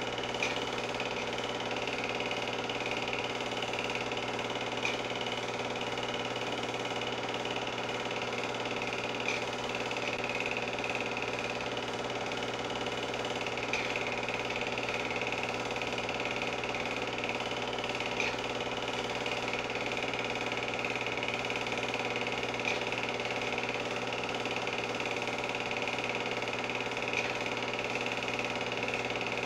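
Film projector running: a steady mechanical whirr and clatter from its motor and film-advance mechanism, with a faint click about every four or five seconds.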